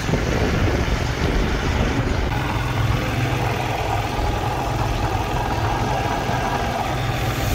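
Motorcycle engine running steadily with a low, even drone while riding.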